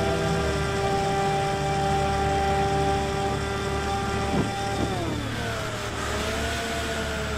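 Brushless electric motor and pusher propeller of a Bixler 3 RC plane running with a steady whine. The whine drops in pitch about five seconds in, then wavers up and down.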